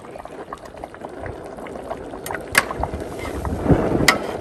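Wind buffeting the microphone in low gusts, strongest a little before the end, with a few sharp clinks of a metal ladle against the pot and bowl as pieces of fish are lifted out of the stew.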